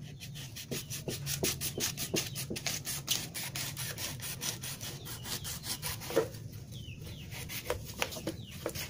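Kitchen knife sawing through a ridged black strip of old laundry washboard, with quick, even back-and-forth rasping strokes for about five seconds, then a few slower, separate strokes near the end.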